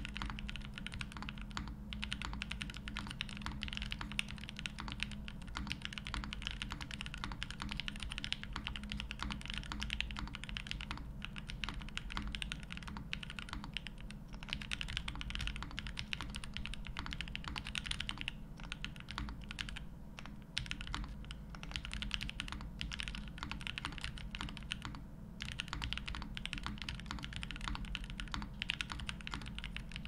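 Continuous typing on a Mode65 custom mechanical keyboard with a copper plate, linear Creamsicle switches (Tangerine housings, Cream stems) and DSA-profile keycaps. A dense run of key clacks, broken by short pauses a few times.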